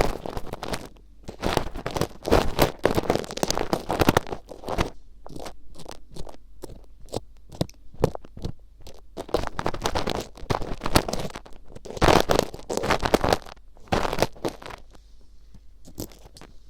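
Ear-cleaning ASMR: an ear pick scraping and rustling against the microphone's ear, in irregular crackly strokes with short pauses, quieter near the end.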